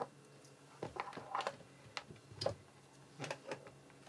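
Light plastic clicks and taps as a 3G USB dongle is pushed into a small Wi-Fi router's USB port and the router and its cables are handled on a tabletop: about seven short, sharp clicks, irregularly spaced.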